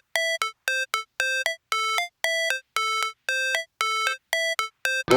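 Synthesizer intro: a repeating two-note electronic figure, a longer low note followed by a short higher one, about twice a second. A full beat comes in right at the end.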